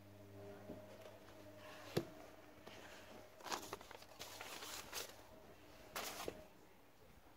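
Faint rustling and scraping of a phone being handled, with a sharp knock about two seconds in and bursts of rubbing around the middle and again near six seconds, over a faint steady hum.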